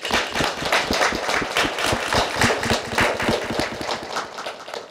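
A small group of people clapping, the applause dying away near the end.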